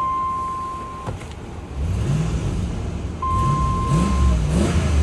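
Dodge Ram 1500's 5.7-litre gasoline V8 idling, then revved in a series of quick throttle blips from about two seconds in, each rev rising and falling. A steady high beep sounds over the engine at the start and again for about a second around three seconds in.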